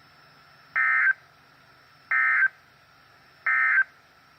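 NOAA Weather Radio EAS End of Message signal: three short bursts of SAME digital data tones, each about a third of a second long and about 1.4 s apart. They mark the end of the weekly test message.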